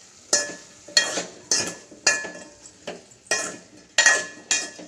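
Metal ladle clanking and scraping against an aluminium pot while stirring chunks of eggplant, about eight ringing clanks at roughly two a second.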